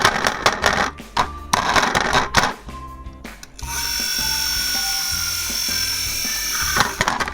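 Background music with a steady beat. Over it come rapid clicks and rattles for the first couple of seconds, then a steady high whir lasting about three seconds that stops abruptly near the end.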